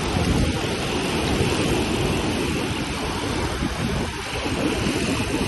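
Wind buffeting the microphone: a steady rushing rumble that flutters unevenly.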